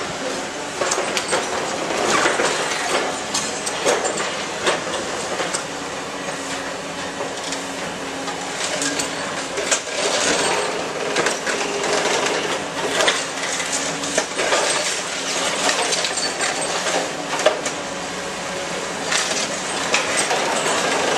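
Cat 320D demolition excavator's long-reach crusher jaw breaking up reinforced concrete: continual crunching and crackling with many sharp knocks of rubble falling, over the steady hum of the running diesel engine.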